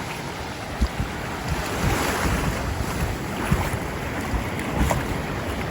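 Ocean waves washing up on a sandy shore, with a surge of surf about two seconds in, while wind gusts buffet the microphone with low thumps.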